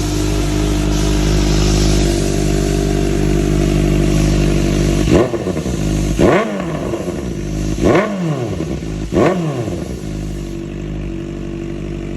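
Kawasaki ZX-4RR's 400 cc inline-four idling steadily, then blipped three times in quick succession, the pitch rising and falling with each rev, before it settles back to idle. A rev check of the exhaust note.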